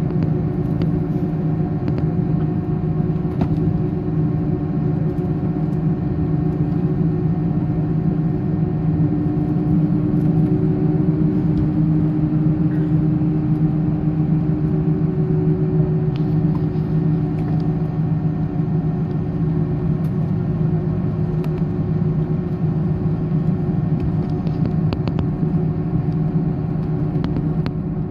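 Steady low rumble and hum inside an Airbus A310 cabin: the jet engines running at low power shortly before take-off.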